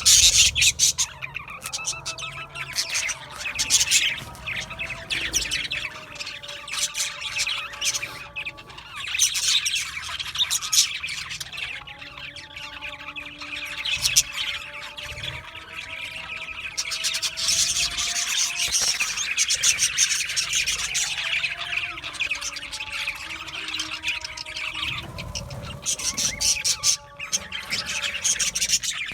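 A group of budgerigars chattering continuously: a dense mix of rapid high chirps, warbles and occasional squawks.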